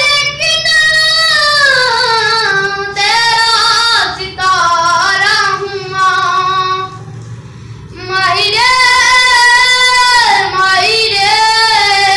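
A young boy singing solo with no accompaniment, holding long notes that bend and waver in pitch. The voice softens briefly past the middle, then comes back at full strength.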